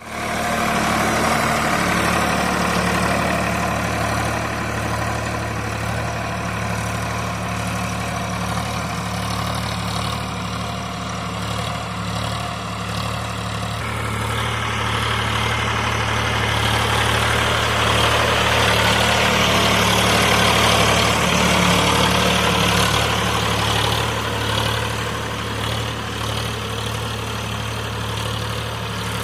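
VST Shakti 9045 DI tractor's diesel engine running steadily under load as it pulls a five-tyne cultivator through the soil.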